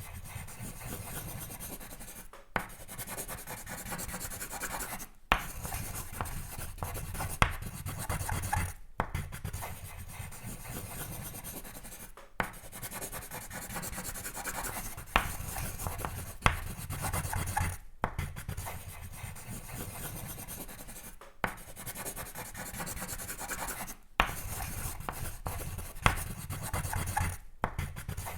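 Continuous scratching and rubbing of sketching strokes on paper, broken by brief pauses every few seconds, with an occasional sharp tick.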